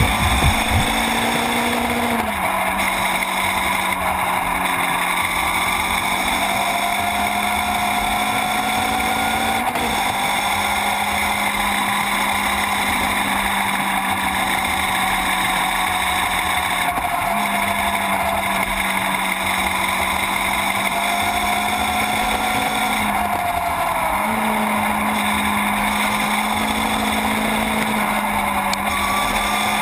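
Sportbike engine running at a steady high rpm with wind and road noise, its pitch dipping or stepping briefly a few times.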